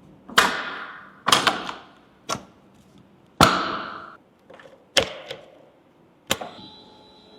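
A series of six sharp clicks or knocks, about a second apart, each with a short ringing tail.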